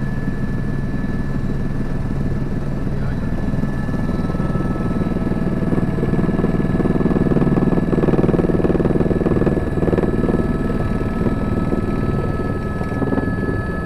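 Helicopter engine and rotor noise heard from inside the cabin as it comes in low to land: a steady, dense drone with a constant high whine above it, growing a little louder around the middle.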